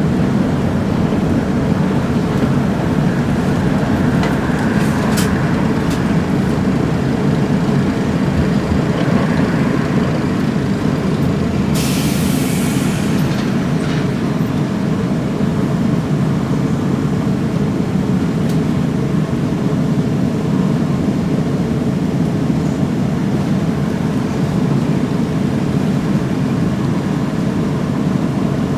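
UTDC/Hawker Siddeley CLRV streetcar running along the track, heard from inside: a steady low rumble of motors and steel wheels on rail. A short hiss of air comes about twelve seconds in.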